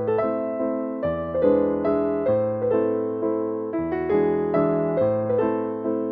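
Background music: a gentle electric piano melody over a steady bass line, with a new note or chord about every half second.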